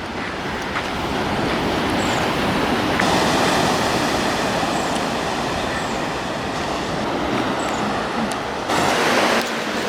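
Seaside ambience: a steady rushing noise of the open air by the sea, growing a little louder about three seconds in, with a brief louder surge near the end.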